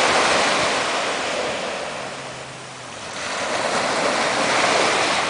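Small waves breaking and washing up a sandy beach as a steady rushing hiss. The wash swells, eases off about halfway through, then swells again with the next wave.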